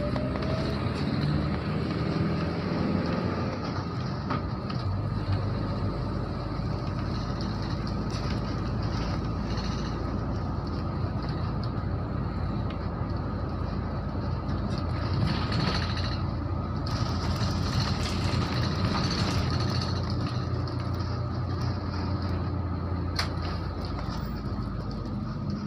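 Steady road noise and engine hum of a car driving along a street, heard from the moving car.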